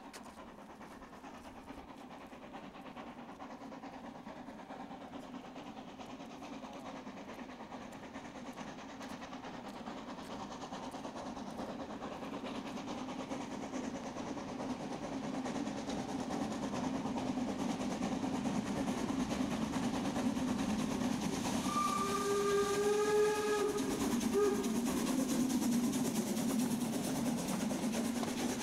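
Harz narrow-gauge steam tank locomotive 99 7224 (DR class 99.23–24) approaching and passing with its train, its running sound growing steadily louder. About 22 seconds in it blows its steam whistle, a chord of several pitches, for about two seconds.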